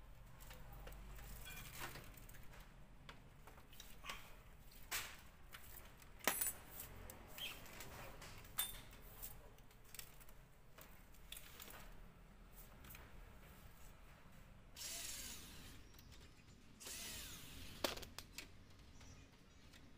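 Handling noise from taking apart an LCD TV: scattered sharp clicks and knocks of plastic bezel and frame parts being pried and set down, with two longer scraping rustles near the end.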